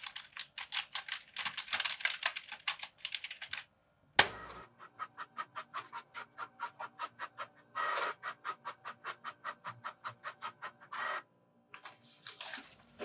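Typing on a computer keyboard for about three and a half seconds, a single sharp click, then an inkjet printer printing: a regular pulsing of the print head at about five a second, broken twice by a short whirr. Paper rustles near the end as the printed sheet is handled.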